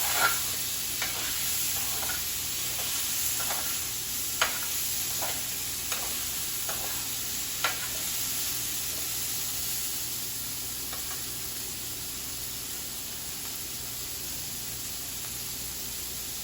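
Sliced bell peppers, onion and garlic sizzling steadily in a pan over high heat, stir-fried with a utensil that clicks against the pan several times in the first half.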